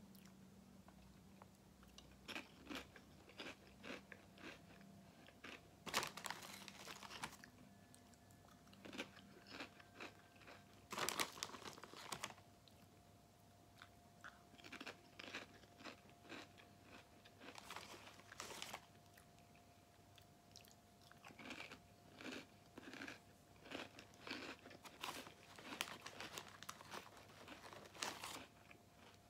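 Close, quiet crunching and chewing of sea salt Popchips, popped potato chips, in short bursts of bites. The crinkly chip bag rustles briefly as a hand reaches in, about six seconds in, again at eleven seconds and near the end.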